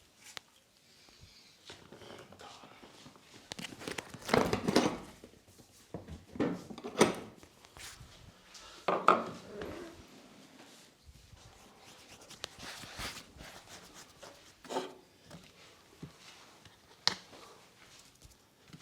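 Massage sounds: hands rubbing with several irregular slaps or knocks, the loudest about four to five seconds in, and a short sharp snap near the end.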